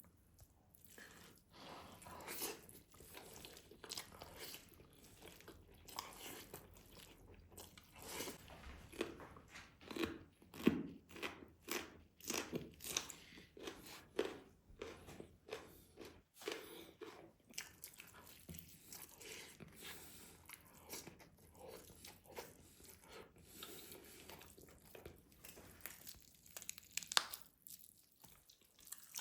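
Close-miked eating of rice and meat: chewing and biting, with many short, irregular mouth clicks and smacks. The loudest come about ten seconds in and again near the end.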